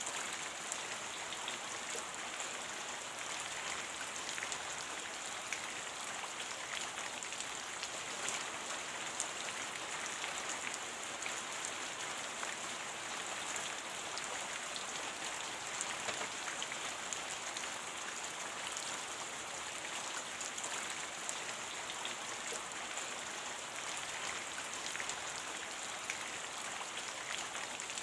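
Steady rain: a dense, even patter of raindrops with a constant hiss.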